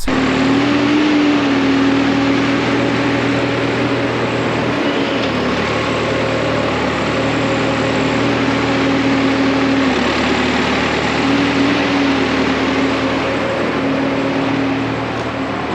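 Tractor diesel engine running steadily, with a constant hum over a broad mechanical noise.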